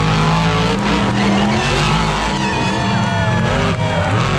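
Monster truck engines running loud and revving, rising in pitch over the first second or so, mixed with background music.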